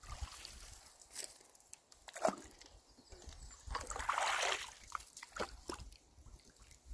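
Shallow muddy water sloshing around wading rubber boots and hands, with a louder spell of splashing about four seconds in as the hands work in the water. A few short knocks are heard along the way.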